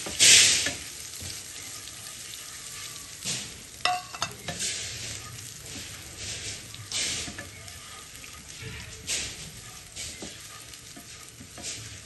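Garlic paste frying with cumin and coriander in hot oil, sizzling steadily while it is stirred, with a loud scraping stroke every second or two. A few quick metallic clinks about four seconds in.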